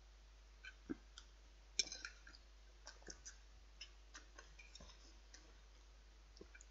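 Faint, scattered clicks and light scrapes of a metal knife and fork against a china plate while cutting meat and rice, with a small cluster of clicks about two seconds in.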